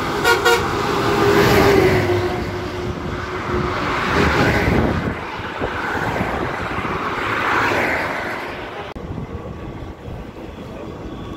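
Road vehicles passing close by one after another on a highway bridge: three swells of engine and tyre noise, one with an engine tone falling in pitch as it goes past, then quieter traffic noise from about nine seconds in. Two short horn beeps near the start.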